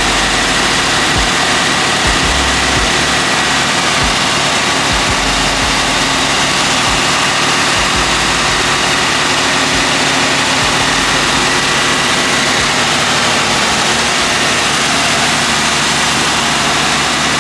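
Chevrolet Caprice engine idling steadily.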